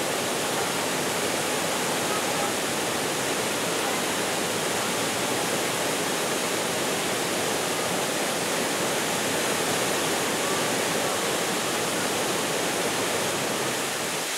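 Waterfall: a steady rushing of water falling over rocks.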